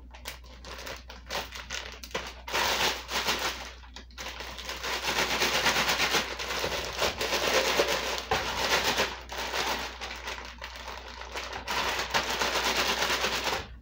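Plastic zip-top freezer bag crinkling and rustling as it is pressed shut and shaken and kneaded, with raw shrimp and marinade inside: a dense run of fine crackles, loudest in the middle stretch.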